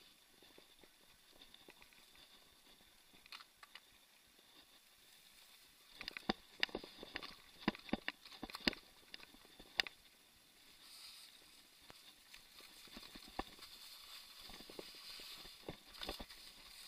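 Mountain bike rattling and knocking over bumps on a dirt trail: a cluster of sharp clatters from about six to ten seconds in and more near the end, with a faint steady hiss of tyres and wind between.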